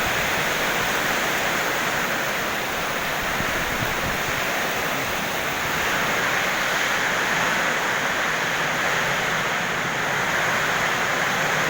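Heavy rain pouring down in a strong storm wind, a steady rushing noise with wind buffeting the microphone.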